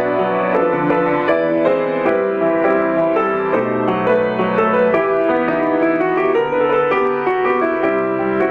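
Instrumental piano music: a flowing run of quick notes over held chords at a steady volume.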